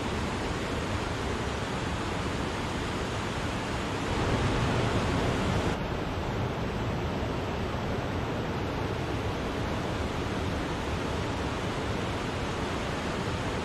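Steady rush of water falling at Wachirathan waterfall, a continuous even roar of white water. It swells a little about four seconds in, then drops back sharply just before the middle.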